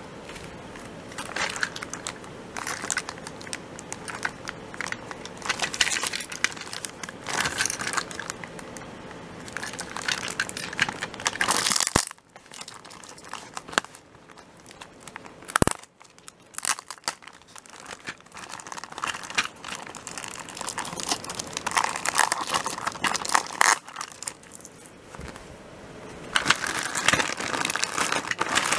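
Clear plastic wrapping crinkling and rustling in irregular bursts as a toy train is unwrapped by hand, with two sharp clicks near the middle.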